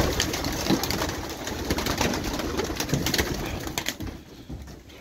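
Domestic pigeons at the loft: a busy rustling clatter of wings with many sharp clicks and some cooing, dying down near the end.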